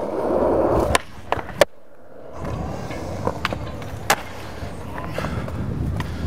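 Skateboards rolling on concrete, with several sharp clacks of boards popping and landing: a cluster of three about a second in, more around the middle and one near the end.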